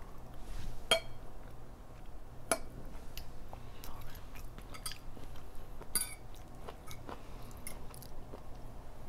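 Close-miked chewing and mouth sounds of someone eating an omelette, with a scatter of sharp clicks from a fork against the plate and teeth.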